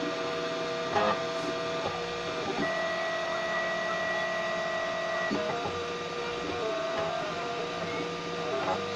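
Homemade 3D printer running a slow print: its stepper motors whine in steady tones that jump to a new pitch every second or few as the print head changes direction. A short click comes about a second in.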